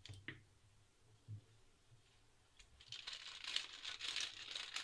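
Baking paper crinkling and rustling as hands and a wooden rolling pin work over it, beginning about three seconds in after a few faint taps.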